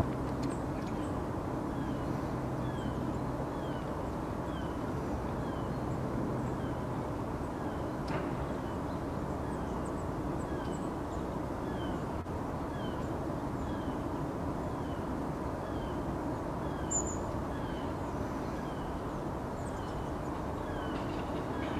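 A small bird calling a short, falling note about once a second, over a steady low background rumble.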